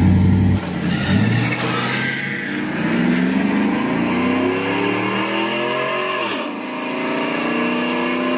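Cammed LS V8 in a Tahoe (Stage 4 cam) pulling at full throttle down a drag strip, heard from inside the cab. The engine note climbs steadily, drops sharply at an upshift about six seconds in, then climbs again in the next gear.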